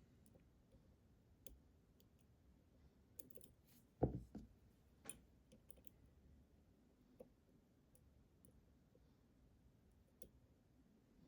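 Faint, scattered clicks of a lock pick working the pins of an iNAHO Tierkey lock, with one louder knock about four seconds in.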